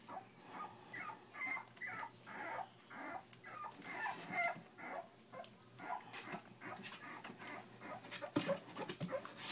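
Three-week-old Miniature Bull Terrier pups whimpering in short, squeaky high-pitched cries, about two a second, over soft handling noises, with a bump near the end.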